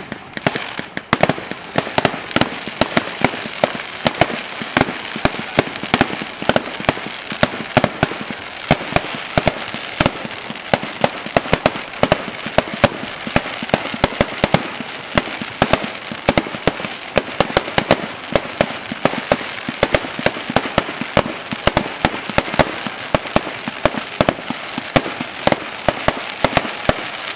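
Fireworks display in a rapid barrage: several sharp bangs a second from aerial shells bursting, over a constant rush of noise from the launches and crackle, held at full intensity.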